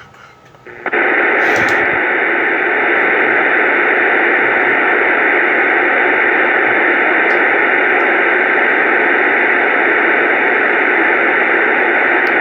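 Loud, steady radio static hiss that starts abruptly about a second in and holds at an even level.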